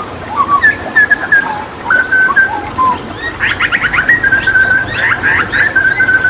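Hooded butcherbird singing: clear whistled notes at first, then about halfway a fast run of sweeping notes over a repeated held whistle, with running water hissing behind.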